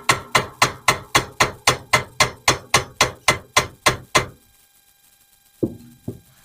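A small hammer tapping rapidly to start the roll pin that holds an AR-15's gas tube in the gas block, about four light strikes a second. The tapping stops a little over four seconds in, and two separate knocks about half a second apart follow near the end.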